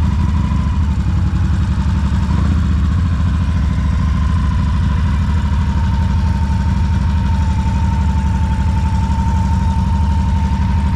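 Harley-Davidson motorcycle's V-twin engine running steadily at low revs as the bike rolls slowly, with no revving.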